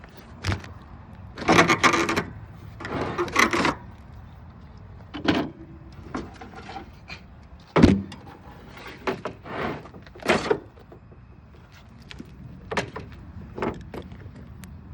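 Irregular scraping and clunking from a 1970s Carrier window air conditioner's case and chassis being handled and pried at. There are several short rasping scrapes and one sharp knock about eight seconds in.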